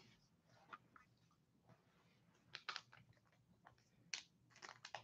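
Faint handling noise of trading cards: a few soft, brief clicks and rustles as cards are slid and shuffled between the hands, scattered over otherwise near silence.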